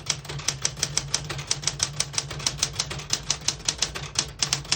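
1969 Smith-Corona Galaxie Deluxe manual portable typewriter typing a sentence: a fast, even run of type-bar strikes, about six a second, with a brief pause near the end. The keys strike cleanly, none skipping or sticking.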